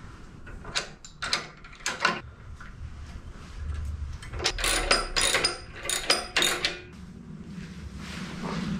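Socket ratchet tightening the nuts on the coil-spring suspension hangers of a steel locomotive chassis. There are a few separate clicks in the first two seconds, then a quick run of ratchet clicks for about two seconds near the middle.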